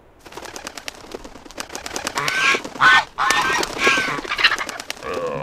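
Cartoon seagull squawking in several harsh calls, with rapid wing flapping and scuffling as it tussles with a baby seal.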